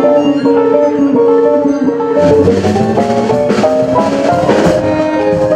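Instrumental band music: a quick melody of plucked electric-guitar-like notes over the band, with drums and cymbals coming in more strongly about two seconds in.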